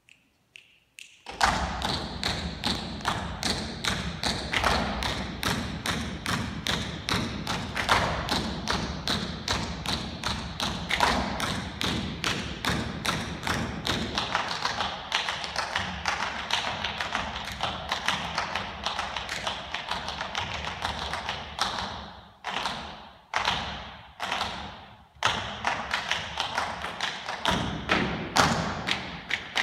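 Tap shoes of two dancers striking the floor in a fast, unaccompanied tap rhythm, starting about a second in. Toward the end the taps thin out to a few single strikes that ring briefly, then the rapid rhythm picks up again.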